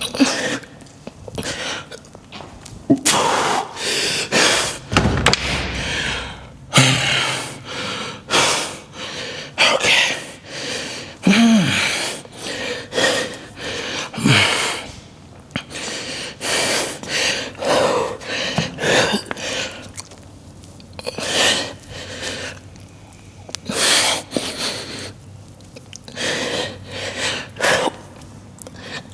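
A man breathing hard in loud, irregular gasps and blowing exhalations, catching his breath after a set of lifts, with a low thud about five seconds in.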